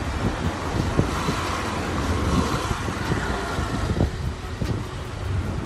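Motorbike riding slowly, its engine running under a steady low rumble of wind on the microphone, with a few light knocks.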